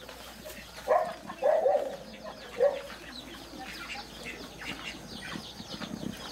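Rooster clucking: a few short, low clucks in the first three seconds, then only faint high chirping.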